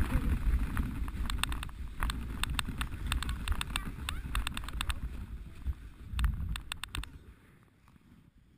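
Sledge sliding down a packed-snow luge run: a rough rumbling scrape of the runners over the snow, with scattered clicks and knocks. The noise dies away about seven seconds in.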